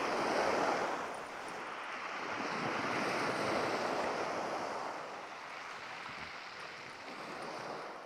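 Waves breaking and washing up the beach: a steady rushing noise that swells twice and then eases off.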